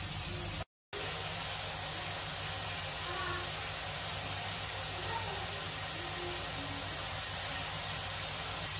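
Steady hiss with a low hum beneath it, cut off by a brief dropout under a second in and then running on evenly.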